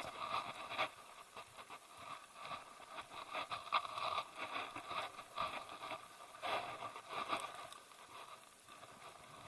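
Hiking footsteps on a trail, with rustling and scraping: an uneven run of short crunches and crackles.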